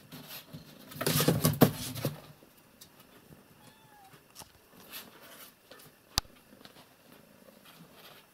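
Kittens inside a cardboard box faintly mewing, with a louder rough burst of noise about a second in lasting about a second and a single sharp click about six seconds in.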